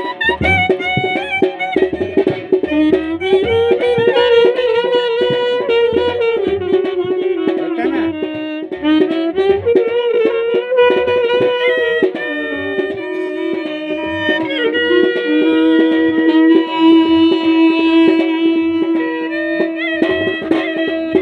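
Live band music: a clarinet and a brass instrument playing a folk melody over a steady drum beat.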